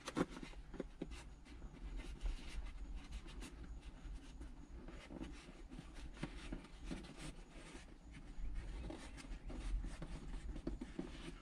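Faint scratching and rubbing with many small irregular clicks: fingers pressing a thin dash cam power cable into the gap along the vehicle's headliner trim.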